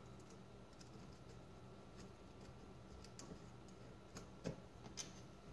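Near silence with a few faint metal ticks as a small screw is turned by hand into a corner of an aluminum case's end plate; the clearest two come about four and a half and five seconds in.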